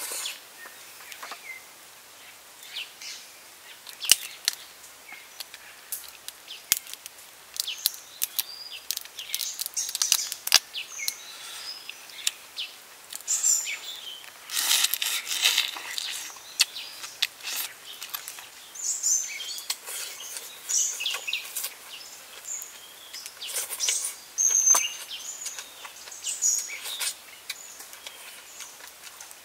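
Crackles and crunches of steamed prawn shells being cracked and peeled by hand, mixed with chewing, a string of short sharp snaps with a denser crunching stretch about halfway through. Birds chirp in the background.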